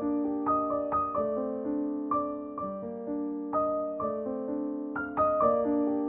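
Background piano music: single notes struck about twice a second and left to ring and fade over a held chord.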